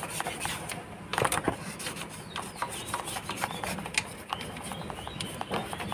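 A toothbrush scrubbing brake dust out of a scooter's rear drum brake, an irregular run of short scratchy strokes.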